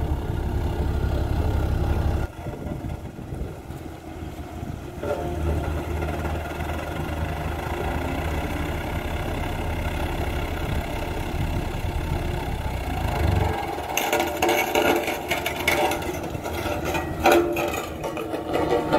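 Diesel engine of a BOMAG single-drum road roller running as it rolls over freshly laid graded crushed stone, compacting it. A heavy low hum drops away about two seconds in, returns a few seconds later and stops around two-thirds of the way through. The sound gets noisier over the last few seconds as the roller comes close.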